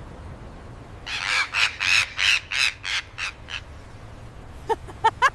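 A parrot squawking: a run of about ten harsh squawks in quick succession, followed near the end by a faster string of higher, pitched chattering calls.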